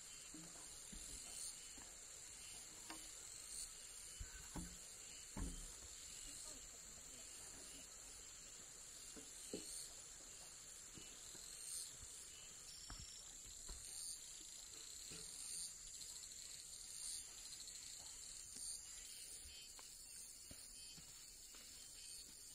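Faint steady high-pitched insect chorus, with a few faint scattered knocks.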